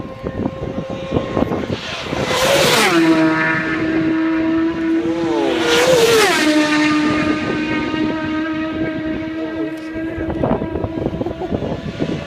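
Racing motorcycles passing flat out at close range, two in quick succession: each arrives with a sudden blare whose pitch drops sharply as it goes by, then settles into a steady high engine note that carries on down the road.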